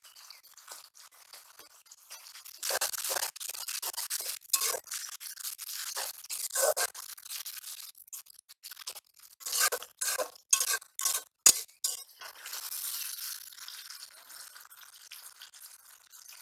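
Metal spatula scraping and stirring onions in a steel wok, in bursts of quick scrapes with a metallic clink, and one sharp knock on the pan about two-thirds of the way through. In the last few seconds, a steadier frying hiss.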